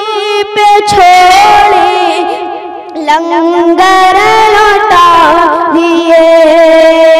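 A young boy singing a devotional Urdu kalam solo into a microphone, holding long notes with ornamented turns in pitch. The voice dips briefly about three seconds in, then carries on.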